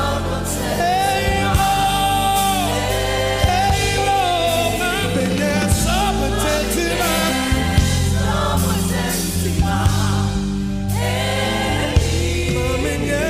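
Live gospel praise music: voices singing long held, sliding notes over a band with a steady bass line and regular drum hits.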